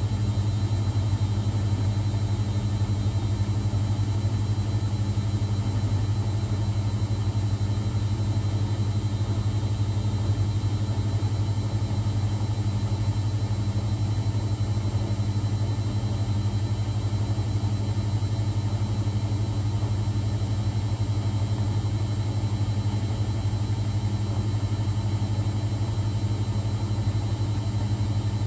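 Bosch WFCX 2460 front-loading washing machine running with a steady, even low hum that neither pauses nor changes pitch.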